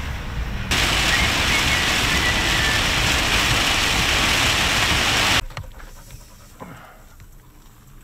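Heavy rain on a vehicle's roof and windshield, heard from inside the cab as a loud steady hiss. It starts suddenly just under a second in and cuts off abruptly about five seconds in, leaving a much quieter outdoor background.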